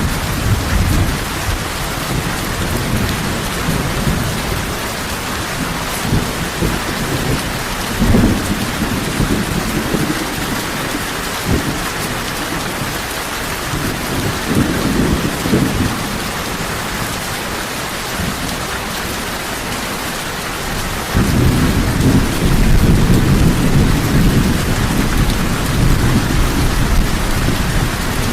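Heavy rain falling in a steady hiss, with deep rolls of thunder swelling and fading several times. A longer, louder rumble sets in about three quarters of the way through.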